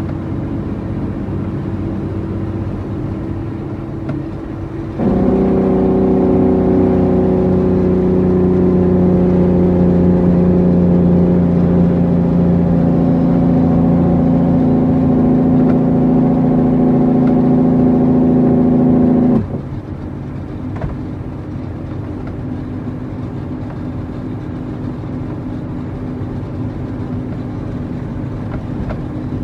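International 9300 truck's diesel engine running steadily. About five seconds in, a louder, strongly pitched drone comes in suddenly, holds a steady pitch, then cuts off abruptly some fourteen seconds later, leaving the engine running as before.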